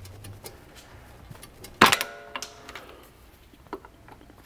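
Steel pry bar levering an old axle seal out of a front differential: faint scrapes and clicks, and about two seconds in one sharp metallic clank that rings briefly.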